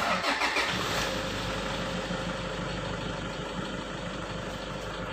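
Toyota Innova's 2.5-litre four-cylinder turbodiesel (2KD-FTV) starting up and settling into a steady idle of about 800 rpm within about a second, heard from inside the cabin.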